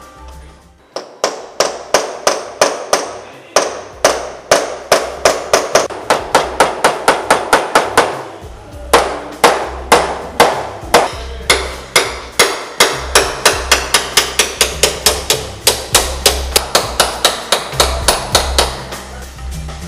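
Hand hammer striking scrap metal parts to fix them onto a mural board: repeated sharp knocks, scattered at first, then a quick steady run of about three blows a second from about halfway.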